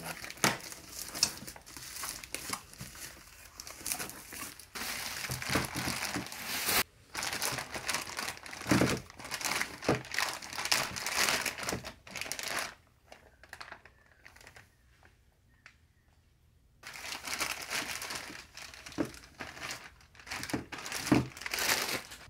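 Packaging being handled, crinkling and rustling with many small clicks and taps, broken by a pause of a few seconds about two-thirds of the way through.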